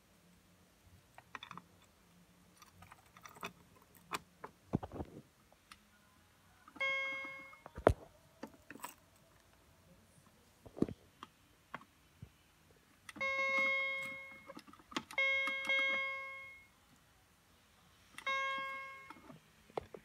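Fire alarm sounding its chime tone: four single-pitch chimes, each ringing for about a second and fading out, with sharp clicks and knocks between them, one knock the loudest.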